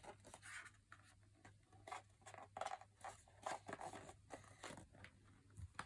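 Faint scattered taps and rustles of a small cardboard box being handled and turned over by a toddler's hands.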